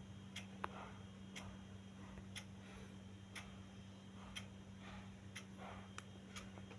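A clock ticking faintly, about once a second, over a steady low hum.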